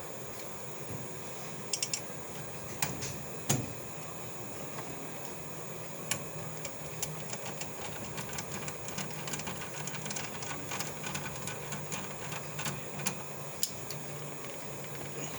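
Scattered light clicks and taps of screws and a screwdriver as a fire alarm panel is screwed back together, a few in quick groups of two or three, over a faint steady low hum.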